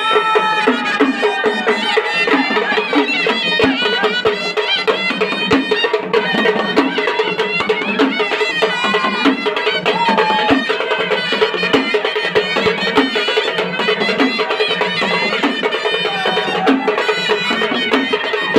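A traditional vajantri band playing loudly: dhol and tasha drums keep a steady, driving beat under a wind-instrument melody.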